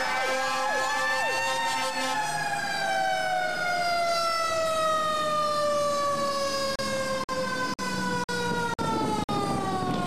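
Fire truck's mechanical siren winding down, its pitch sinking slowly and steadily after a slight rise at the start. Near the end the sound cuts out briefly about twice a second.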